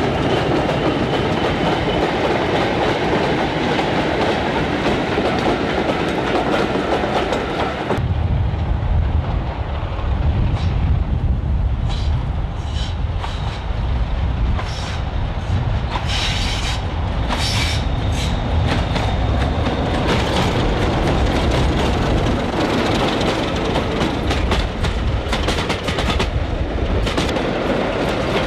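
Preserved British Rail diesel locomotives running past with trains: heavy diesel engine sound and rail wheel noise. The sound changes abruptly about eight seconds in to a deeper engine note, with sharp clanks and squeals scattered through the middle.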